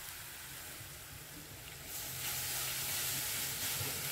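Hot oil sizzling in a steel kadhai as a tempering of bay leaf, dried red chillies and cumin seeds fries in it. The sizzle grows louder about halfway through.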